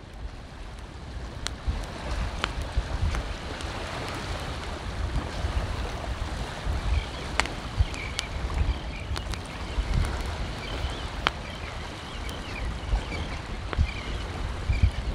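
Small waves lapping on a shell beach, with wind buffeting the microphone in a low, gusty rumble and scattered sharp ticks. Faint bird chirps come in from about seven seconds in.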